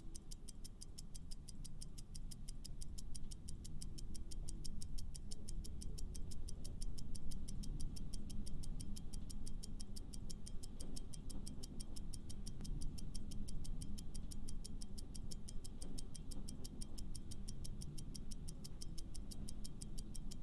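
Clock-style ticking sound effect of a quiz countdown timer, fast and perfectly even, over a low background music bed.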